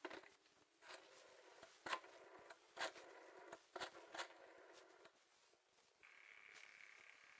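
Near silence with a few faint clicks, then about six seconds in a faint buzzing ring starts: a telephone ringing sound effect.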